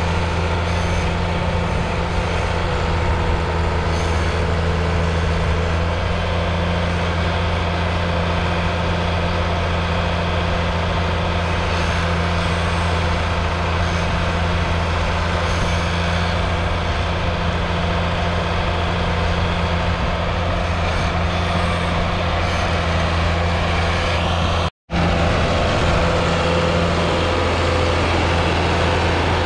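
1982 John Deere 4040's 5.9-litre six-cylinder diesel engine running steadily at a constant speed, broken once by a split-second gap near the end.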